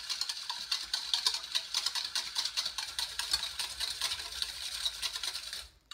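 Wire whisk beating a thin vinegar-and-oil dressing in a stainless steel bowl: a fast, steady rattling scrape of the wires against the metal, stopping near the end.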